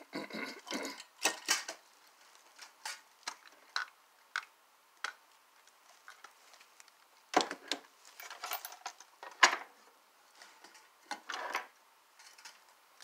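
Light clicks and clatter of a model train tender being handled and set down on a table, with a few short bursts of rustling bubble wrap in the second half.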